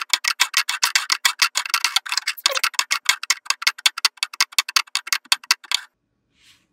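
Rapid, fairly even ticking, about five or six clicks a second, that stops about a second before the end.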